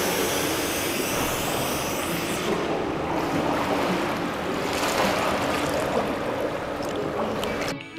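Steady rushing noise of pool water splashing and churning around a descending scuba diver. It turns duller about a third of the way in as the sound comes from under the water, and cuts off suddenly near the end.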